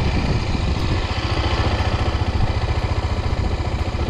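Honda XR250 Tornado motorcycle's single-cylinder four-stroke engine running at low revs, a rapid, even low pulse, as the bike rolls slowly.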